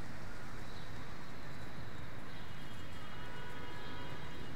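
Steady low rumble of city background noise, with faint thin high tones joining about halfway through.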